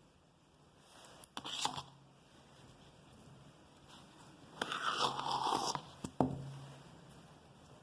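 Close-up mouth sounds of eating a salted lemon: a couple of quick bites about a second and a half in, a longer wet sucking or slurping noise around five seconds, and a sharp click shortly after.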